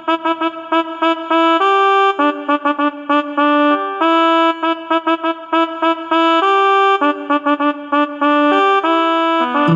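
Ringtone tune: a single melody line of quick repeated short notes alternating with longer held notes, on a bright brass-like sound.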